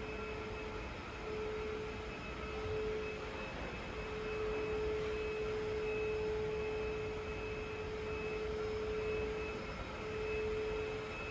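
A steady, single-pitched hum that drops out briefly a few times, over an even hiss of background noise.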